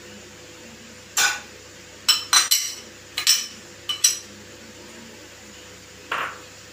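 A bowl knocked against the rim of a frying pan as chopped onions are tipped in: a cluster of about eight sharp, ringing clinks between one and four seconds in, then one duller knock near the end.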